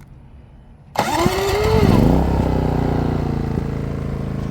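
Maxpeedingrods MXR4000GT dual-fuel inverter generator's single-cylinder four-stroke engine starting about a second in. Its pitch rises and falls as it catches and revs, then it settles into a steady run.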